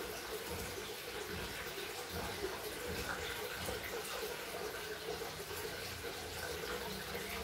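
Steady rush of running water, like a tap or pipe pouring into a tank, with a faint steady hum beneath it.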